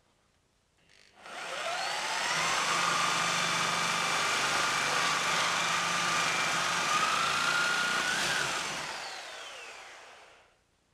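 Corded reciprocating saw fitted with a metal-cutting blade, cutting through a nail between pallet boards: the motor whine rises as it starts about a second in, runs steadily through the cut, then falls away as it winds down near the end.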